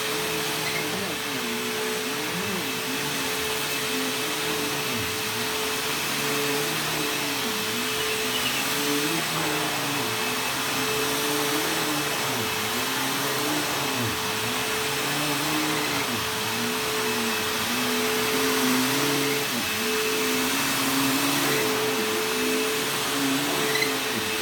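Bissell bagless vacuum cleaner running on carpet. Its motor hum holds steady while a lower tone wavers up and down about once a second.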